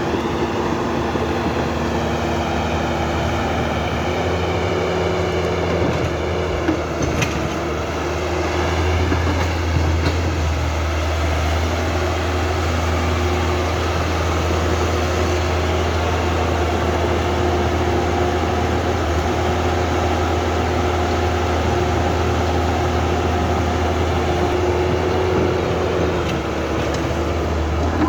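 Electric motors and gearboxes of a Huina 1550 radio-controlled excavator whirring steadily as the machine works, with a higher whine that wavers in pitch during the first several seconds.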